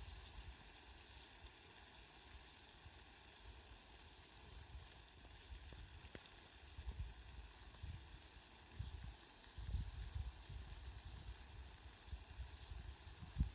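Rain falling: a faint, steady fine hiss, with irregular low rumbles coming and going, more often in the second half.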